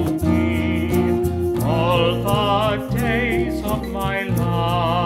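Church music: a voice or voices holding long notes with vibrato over steady low instrumental accompaniment, changing chord about a second and a half in.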